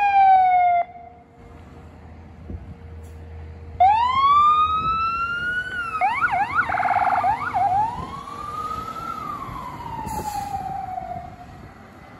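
Fire engine's siren on a pulling-out response. It winds down and cuts off sharply about a second in, then starts again about four seconds in with a rising wail. It switches to a few seconds of quick yelp, then goes back to a long wail that rises and falls away as the truck drives off.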